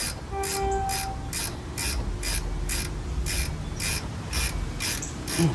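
Ratchet wrench clicking in a steady rhythm, about two strokes a second.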